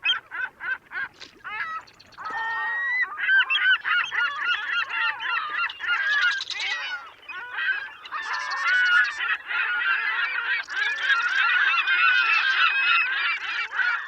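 A flock of geese honking: separate calls come in quick succession at first, then about two seconds in they swell into a dense, overlapping chorus of many birds.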